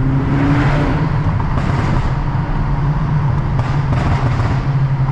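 Volkswagen Golf R's turbocharged four-cylinder engine and aftermarket turbo-back exhaust droning steadily while cruising, heard from inside the car with the windows down. Two brief swells of rushing noise come through, about two seconds in and again near the four-second mark.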